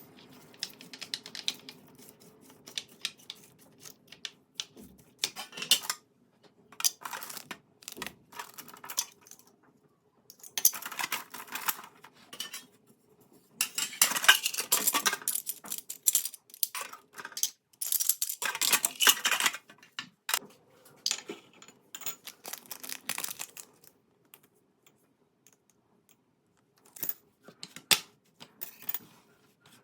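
Kitchen utensils and dishes clinking, tapping and scraping in scattered bursts while food is prepared, with denser spells of handling near the middle.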